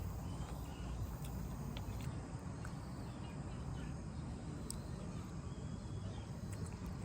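Quiet outdoor ambience: a steady low rumble with scattered faint clicks.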